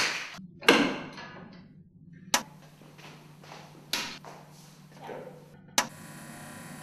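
Several sharp knocks and taps that echo in the room, then near the end a click as an overhead projector is switched on and its cooling fan starts a steady hum.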